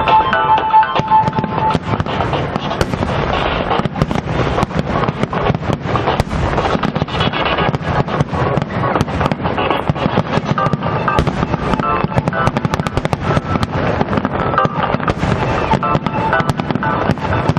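Aerial fireworks going off in a rapid, continuous barrage of bangs and crackles, with music playing alongside.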